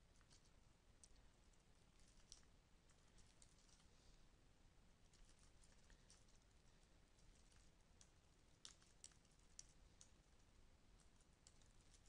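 Faint computer keyboard typing: irregular soft keystrokes, with a few sharper clicks about nine seconds in.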